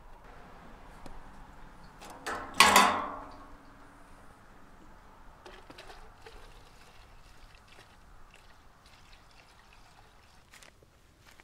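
Fuel trickling from a steel jerrycan through a funnel into the tank of a small Johnson outboard motor. A single loud clank comes about two and a half seconds in.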